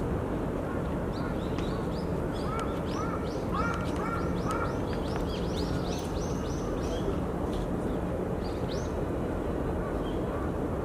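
Birds calling in the trees: a quick run of short, high chirps lasting several seconds, with a few lower repeated calls mixed in, over a steady low background rumble.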